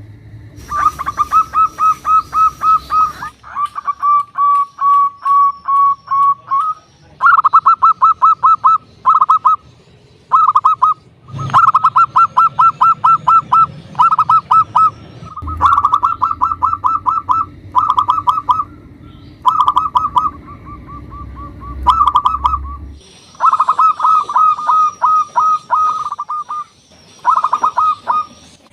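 Zebra dove (local perkutut) singing: loud phrases of rapid, evenly repeated cooing notes, one phrase after another with short pauses between them.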